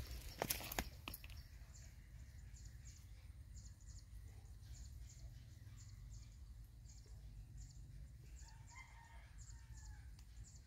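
A rooster crows faintly near the end, over a steady low hum. A few sharp clicks sound in the first second, and a faint high chirping repeats about twice a second throughout.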